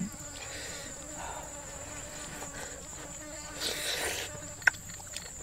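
Insects buzzing in a steady, high-pitched drone, with a brief soft noise about four seconds in.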